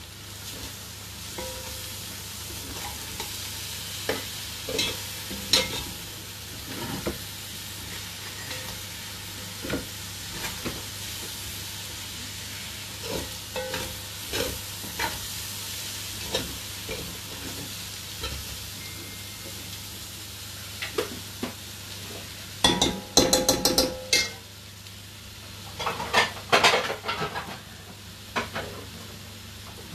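A spoon stirring and scraping rice in a large metal pot over a steady sizzle of frying. It gives frequent short knocks and scrapes, with a run of louder clattering against the pot about three-quarters of the way through and again near the end.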